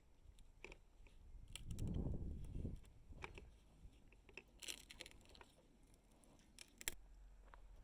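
Faint scattered clicks and light knocks, with a low rumble lasting about a second near two seconds in; no motor is running.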